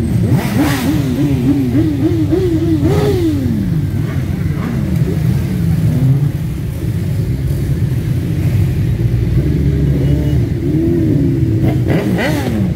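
A large pack of motorcycles idling together while riders blip their throttles. One engine revs up and down several times in quick succession in the first few seconds, and another sharp rev rises and falls near the end.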